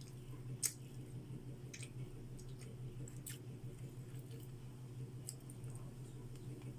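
Person chewing and eating food, with scattered sharp clicks and mouth smacks, the loudest about half a second in, over a steady low hum.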